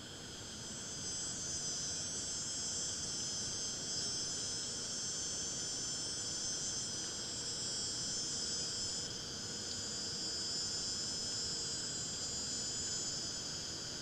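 A chorus of insects giving a steady, high-pitched buzz that swells in during the first second and holds on.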